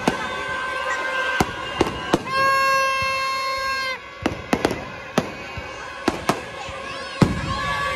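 Firecrackers going off in repeated sharp bangs, a few in quick succession, amid busy street noise. A horn sounds steadily for about a second and a half near the middle.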